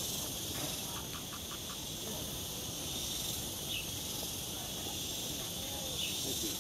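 Steady, high-pitched drone of insects in the surrounding trees, with faint voices in the background and a short run of quick ticks about a second in.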